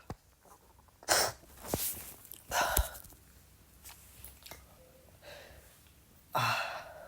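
A person sneezing three times in a small room: sharp, sudden sneezes about a second in, at about two and a half seconds, and again near the end, with quieter breathing between.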